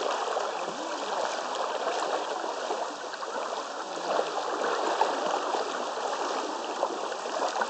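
Shallow mountain river flowing over rocks: a steady rush of running water.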